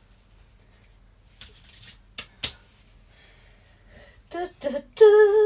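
A short rustle and two sharp clicks of kitchen handling, then a couple of short vocal sounds and a woman humming a steady held note from about five seconds in.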